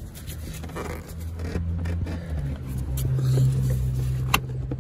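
Plastic engine airbox being pulled and worked loose by hand, with scraping and a sharp click near the end. Under it runs a steady low hum that steps up in pitch about halfway through.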